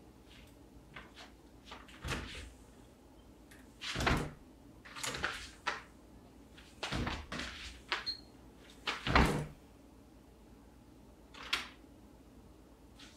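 A house front door being handled, opened and shut: clicks of the knob and latch and several short thuds, the loudest about nine seconds in.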